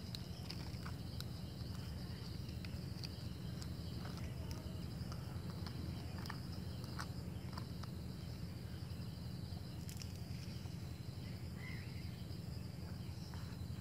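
Steady high chirring of insects, with scattered light clicks and scrapes of a plastic spoon against aluminium foil and a foil plate, over a steady low hum.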